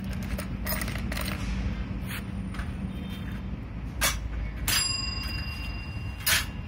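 Scattered metallic clanks and clinks of steel hand-cart parts and bolts being handled during assembly. One knock past the middle rings briefly.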